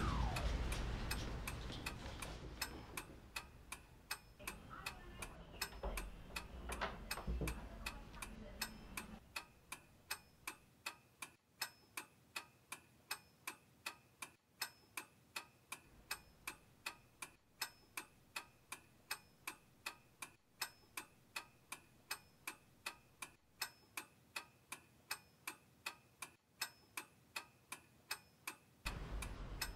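Clock ticking steadily, about two ticks a second, over a low rumble that fades away during the first nine seconds.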